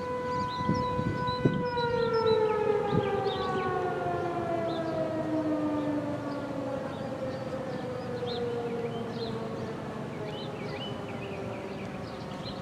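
American Signal T-128 electromechanical outdoor warning siren holding a steady tone, then about a second and a half in winding down with a long, smooth fall in pitch as it shuts off at the end of its test signal. Birds chirp faintly in the background.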